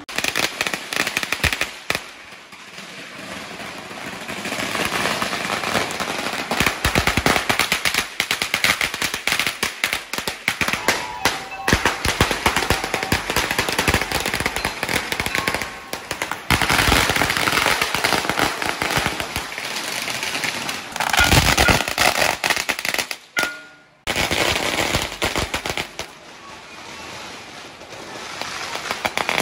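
Strings of firecrackers going off in long, dense runs of rapid sharp bangs. The crackling eases a couple of seconds in, then builds again, and cuts out for a moment a few seconds before the end.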